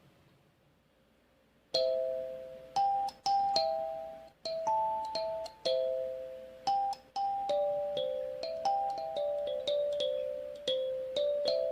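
Cega acrylic 8-key kalimba played as a slow melody: single plucked tines ringing and fading one after another, beginning about two seconds in after near quiet.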